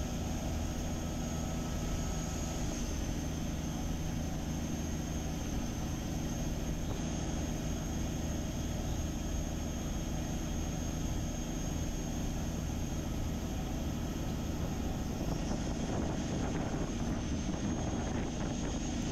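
Chao Phraya express passenger boat's diesel engine running steadily under way, heard from on board: an even low drone with a thin high whine above it.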